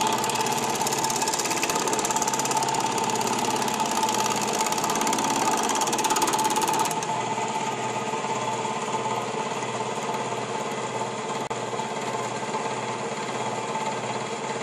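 Reciprocating power hammer fitted with a Valori ES2 edge shrink die, hammering rapidly on the edge of a steel sheet panel to shrink it. The hammering steps down slightly in loudness about halfway through.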